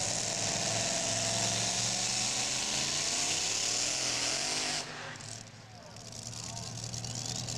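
Modified two-wheel-drive pulling truck's engine idling with a steady low hum and hiss. The sound drops suddenly about five seconds in, then builds back up.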